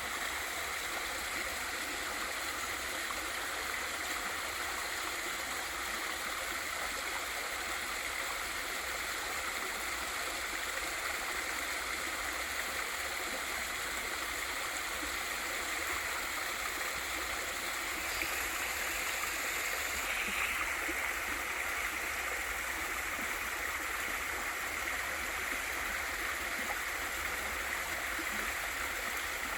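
Small waterfall pouring into a valley stream, a steady rush of water. It swells slightly about two-thirds of the way in.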